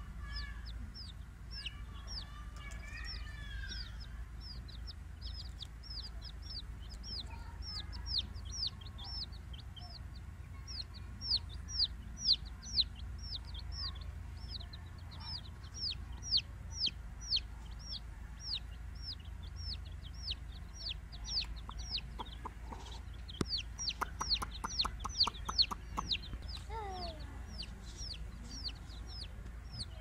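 Baby chicks peeping: a steady stream of short, high chirps, each falling in pitch, several a second. A quick run of sharp ticks comes about two thirds of the way through.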